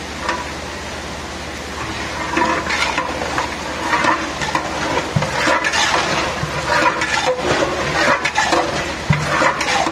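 Long metal spatula stirring and scraping oily, spice-marinated meat in a large aluminium pot, with irregular wet squelches and scrapes that come thicker after about two seconds.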